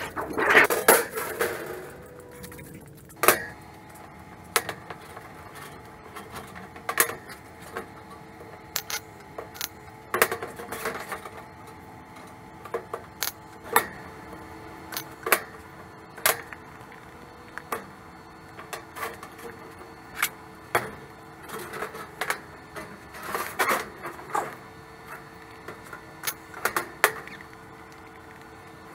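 Thin sheet steel being handled on a metal-topped workbench: scattered sharp metallic clicks, taps and clanks, with a busier rattle of metal in the first two seconds. A faint steady hum runs underneath.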